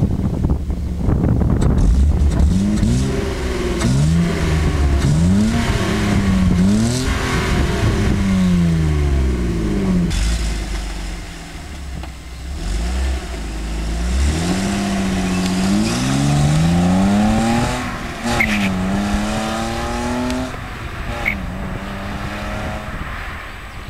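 BMW E30's swapped-in M50 inline-six with VANOS, revved repeatedly, its exhaust note climbing and dropping in a string of rev blips, with a calmer spell about halfway through.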